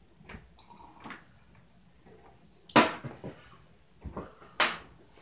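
Irregular knocks and thuds from the apartment above, typical of neighbours stomping overhead. The loudest are two sharp bangs, one a little under three seconds in and one near the end, with a deep thud just before the last.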